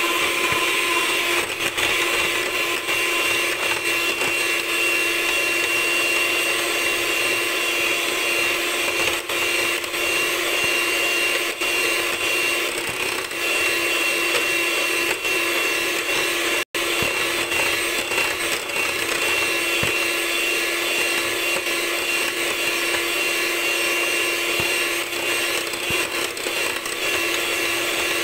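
Electric hand mixer running steadily at speed, its beaters whipping heavy cream that has already doubled in volume; a steady motor whine that drops out for an instant about two-thirds of the way through.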